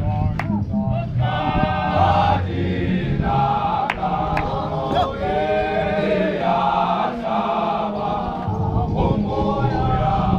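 Large men's group of Zion Christian Church members singing a hymn in chorus without instruments, with a few short sharp knocks among the voices.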